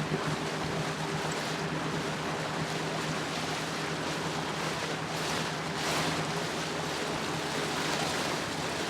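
A boat's outboard motor running steadily under way: a constant low hum over the rush of wind and water.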